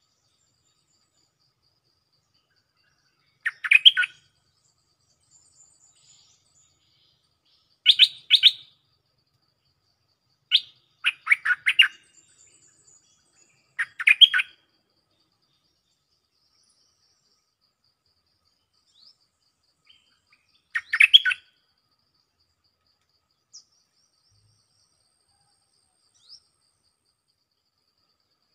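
Stripe-throated bulbul, a caged decoy bird, singing short, loud, bubbly song phrases: five bursts a few seconds apart, with a longer pause before the last. A few faint chirps follow near the end.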